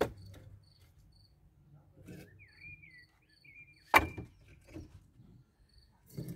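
Crickets chirping faintly in short, evenly spaced pulses. A short, high, wavering call comes a little past two seconds in, and a single sharp knock about four seconds in is the loudest sound.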